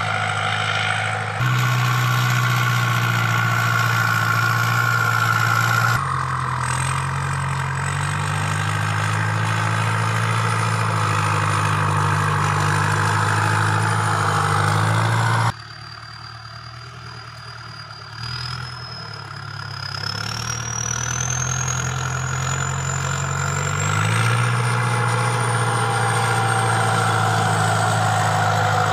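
Ford farm tractor's diesel engine running steadily under load as its front blade pushes red soil, with a thin high whine drifting in pitch above it. The sound drops off abruptly about halfway through, then climbs back to full level a few seconds later.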